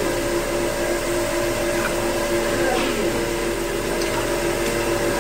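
Chicken pieces deep-frying in a karahi of hot oil, a steady bubbling hiss, with a steady low hum under it.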